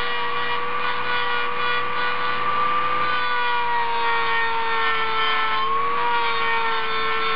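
Kawasaki 1.0-amp rotary tool running steadily with a high whine, its grinding stone rubbing on the cast-iron intake port of a Mazda rotary engine iron as the port is smoothed; the pitch sags a little as the stone bears on the metal.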